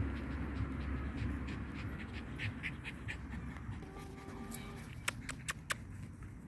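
Dog panting, followed by four sharp clicks about five seconds in.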